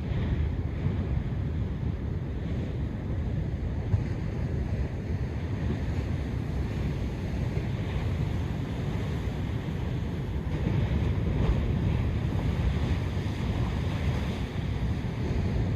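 Ocean surf washing in steadily, mixed with wind rumbling on the microphone; the hiss of the water swells for several seconds past the middle.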